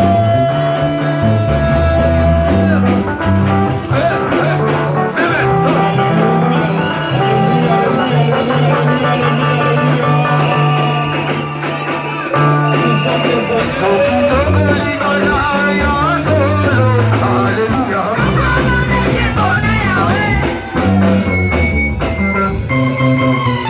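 Band music with a steady bass line and guitar, and voices singing over it.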